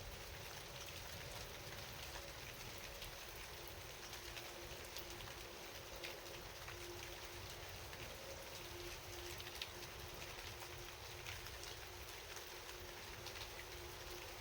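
Steady rain falling, with many separate drops ticking sharply through the hiss, over a faint steady low hum.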